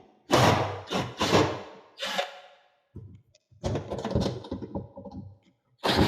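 Irregular knocking and clattering of wooden wardrobe panels and metal fittings as the wardrobe's hanging pole and its bolts are worked loose, in three bursts with short quiet gaps.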